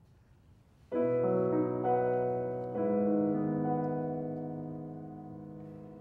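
Grand piano playing the opening chords of a song: after about a second of quiet, a chord sounds, two more follow about a second apart, and the last is held and slowly dies away.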